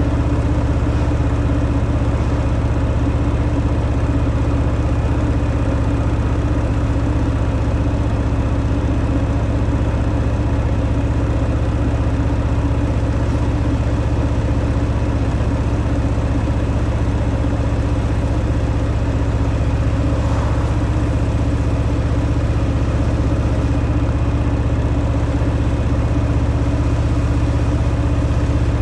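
Harley-Davidson Fat Boy's V-twin engine running steadily through its stock exhaust, a deep, even sound with no revving.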